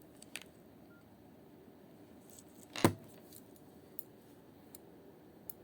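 Nokia 2660 phone being handled: a few light clicks and one sharp, much louder click a little before the middle, over a low steady hiss.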